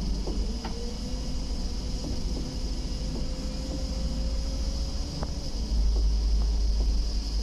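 Inside a moving LiAZ 5292.22 city bus: a steady low rumble from the engine and running gear, with a faint whine that holds and then falls away about five seconds in. A few light rattling clicks come from the body.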